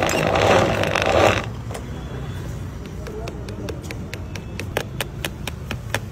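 A hand pressing and rubbing wet pineapple pulp through a plastic mesh strainer, a loud scraping swish that stops about a second and a half in. After it, a low steady rumble with a run of sharp clicks, about three a second near the end.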